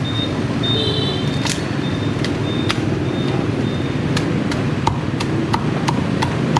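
Meat cleaver chopping roast pork on a thick wooden chopping block: a few separate chops, then from about four seconds in a steady run of chops about three a second, over steady low background noise.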